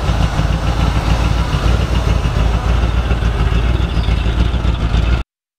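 1975 Ford F-100's engine idling with a steady rumble after being coaxed into starting; the sound cuts off abruptly near the end.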